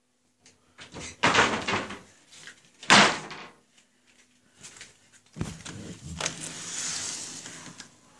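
Rustling and knocking as the phone is moved about, with one sharp knock about three seconds in. A door opens with a sudden thud about five seconds in, followed by a steady outdoor hiss.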